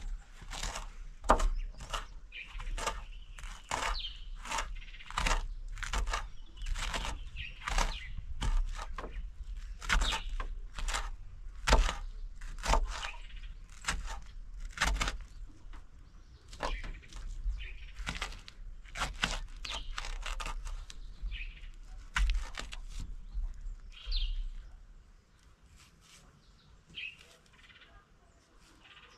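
Kitchen knife chopping ripe bananas, peel and all, on a wooden plank: quick irregular knocks of the blade on the board, about two or three a second, stopping a few seconds before the end. A few bird chirps come through in the quieter last part.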